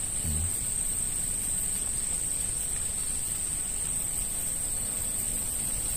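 Steady high-pitched insect drone, one unbroken tone, over a low rumble, with a brief low thump just after the start.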